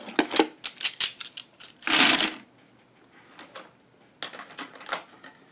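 Plastic pens and markers clicking and clattering against each other and a small storage box as they are handled and pushed in. A quick run of clicks is followed by one louder rattling clatter about two seconds in, then a few light clicks near the end.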